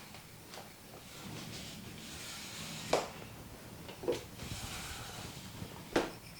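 Hands working a head in a massage, a soft rustling rub broken by three sharp cracking pops a second or two apart.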